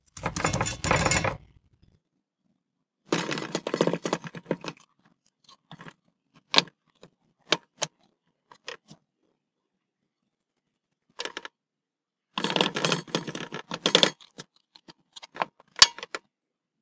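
Plastic disposable gloves rustling and crinkling in several bursts, with scattered light taps, as gloved hands press dry spice rub into raw pork ribs and shift the slabs on a wooden cutting board.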